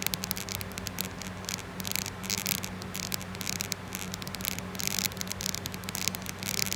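Faulty iPhone 11 camera making a continuous fast, irregular crackling rattle over a low steady hum, the noise of a camera that shakes.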